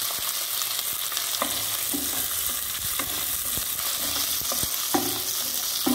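Shallots and okra pieces sizzling in hot oil in a non-stick kadai, with a steady hiss, while a wooden spatula stirs them and scrapes and knocks against the pan now and then.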